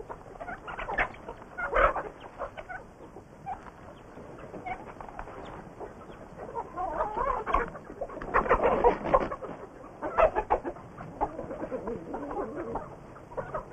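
Chickens clucking in irregular short calls, busiest and loudest a little past the middle.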